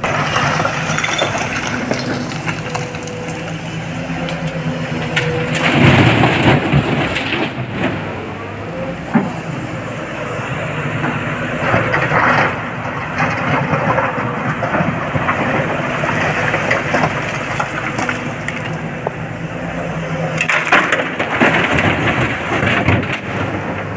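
Excavator engine running steadily under hydraulic load. Three loud crashing bursts, about 6, 12 and 21 seconds in, are loads of rock and earth being dumped into a tipper truck's steel body.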